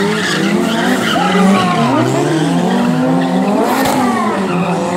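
Small hatchback's engine revving hard, its pitch rising and falling again and again, while it spins donuts on concrete with its tyres skidding and squealing.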